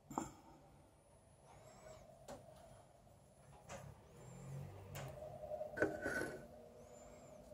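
Faint handling noise: a few light clicks and knocks, the sharpest near the start and about six seconds in, over a low room hum.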